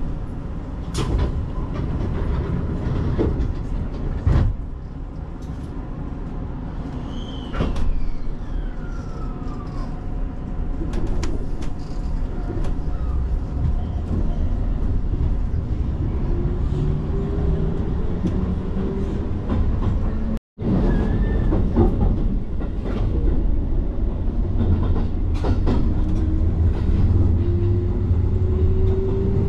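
Electric commuter train: a steady hum while it stands at the platform, then a motor whine that rises steadily in pitch as it pulls away. After a brief dropout about two-thirds through, a rising whine comes again over the rumble of the wheels as the train accelerates.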